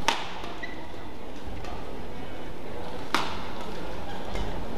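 Badminton rackets striking the shuttlecock in a doubles rally: sharp smacks about one and a half seconds apart, the two loudest just after the start and about three seconds in, over the steady background noise of the hall.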